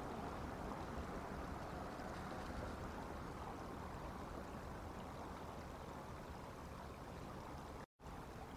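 Steady low rushing background noise from an outdoor camera microphone, with no distinct events, cutting out completely for a split second near the end.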